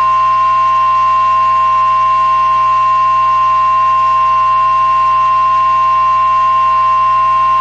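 NOAA Weather Radio 1050 Hz warning alarm tone: a single steady, loud electronic tone held without a break, the signal that an emergency warning broadcast follows.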